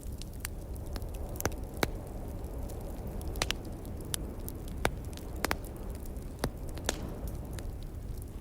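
Wood fire crackling, with irregular sharp pops of burning logs, a few of them louder, over a low steady rumble.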